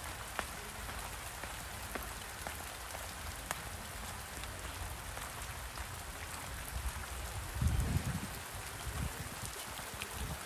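Steady rain falling, an even hiss with scattered faint drop ticks. A brief low rumble comes about three quarters of the way through.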